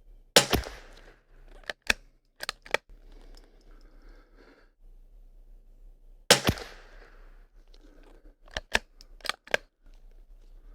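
Two .22LR rifle shots from a Kimber bolt-action rimfire, about six seconds apart, each a sharp crack with a short ring. About a second after each shot comes a quick series of four metallic clicks as the bolt is worked to chamber the next round.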